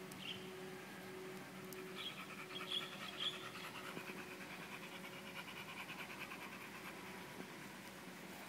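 Pit bull panting rapidly in a fast, even rhythm that runs for several seconds.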